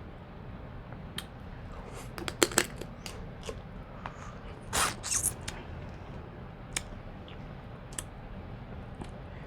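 Seafood boil being eaten by hand close to the microphone: shells cracked and pulled apart, with a cluster of sharp cracks about two and a half seconds in, a brief noisy burst near five seconds and scattered smaller clicks.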